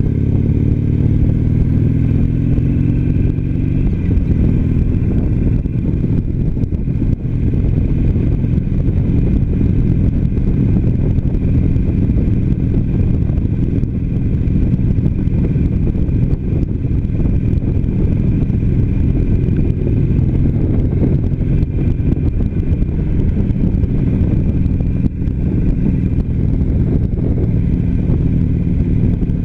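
Harley-Davidson Sportster Iron 883's air-cooled V-twin engine running under way on the road. Its revs rise over the first few seconds, then hold steady at cruising speed.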